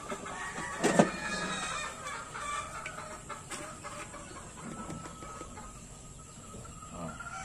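Gamefowl roosters crowing and clucking, with one sharp knock about a second in.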